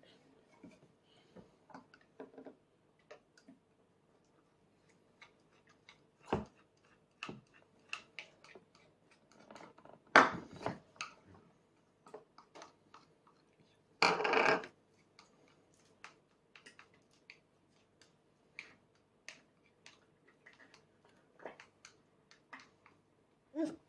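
Scattered small clicks and taps of tableware during a baby's spoon-fed meal. Sharper knocks come about six and ten seconds in, and a short noisy burst about fourteen seconds in.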